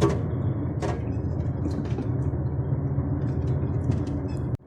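Diesel engine of a DAF truck tractor running steadily while driving slowly, heard from inside the cab as a low drone with a few light clicks. The sound cuts out briefly near the end.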